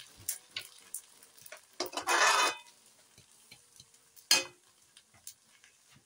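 A metal spatula scraping once against a stainless steel wok of cooked fried noodles about two seconds in, then a single sharp metallic clank a couple of seconds later, with faint scattered ticks in between.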